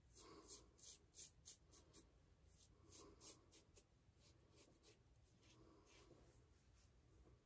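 Faint scraping of a Blackland Blackbird titanium safety razor with a Bolzano Superinox blade cutting stubble on the neck, in quick short strokes, several a second, with a brief let-up midway.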